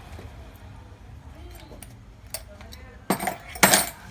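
Small hard parts clicking and clinking, then two short, louder scraping clatters near the end, as parts of an all-in-one desktop computer are handled during an SSD upgrade.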